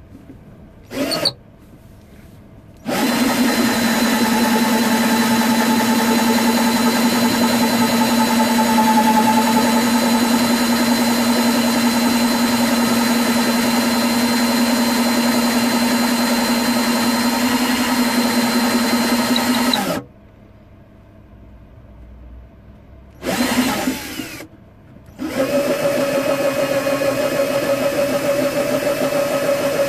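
Cordless drill boring a hole into the wooden body of an oud. It runs briefly about a second in, then steadily for about 17 seconds, stops, gives a short burst around 23 seconds, and runs steadily again from about 25 seconds at a higher pitch.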